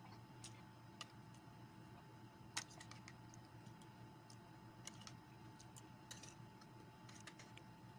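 A metal spoon against a plate and mouth sounds while eating: faint, scattered short clicks and ticks, a few a second at most, over a low steady hum.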